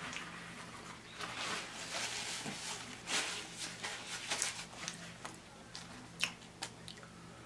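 Close-up sounds of a person chewing food with the mouth closed, coming and going through the first five seconds or so, then a few sharp clicks near the end.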